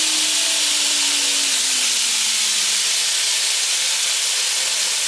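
A 2x60 Northridge belt grinder running with a steady hiss from the belt, its motor hum dropping in pitch about a second and a half in as the variable-speed drive knob is turned down and the grinder slows.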